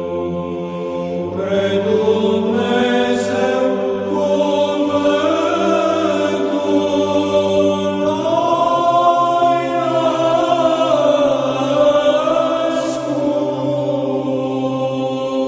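Byzantine psaltic chant in Romanian: a low ison drone held steady beneath a slow, melismatic sung melody that winds up and down.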